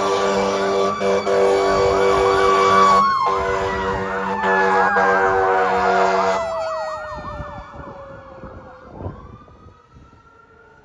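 Fire engine responding with its air horn blasting over a fast electronic yelp siren and a steady siren wail. The horn breaks off briefly about three seconds in, then blasts again until about six seconds, when the yelp stops. Meanwhile the wail winds slowly down in pitch, and near the end a fainter siren wail rises again.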